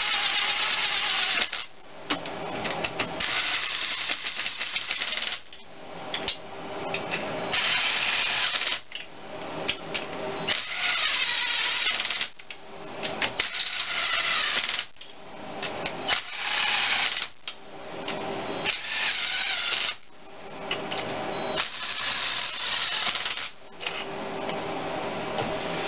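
Cordless driver spinning new cylinder head bolts down into a Geo Metro three-cylinder engine, in about eight short runs of a second or two each, one bolt after another, with a steady motor whine in each run.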